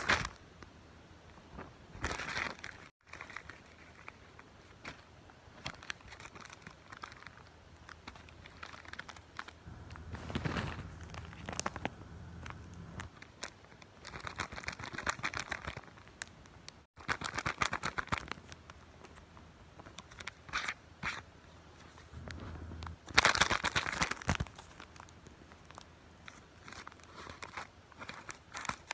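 Paper and clear plastic wrapping crinkling and rustling in irregular bursts as a homemade paper blind bag is handled and opened, with some tearing; the loudest burst comes about three-quarters of the way through.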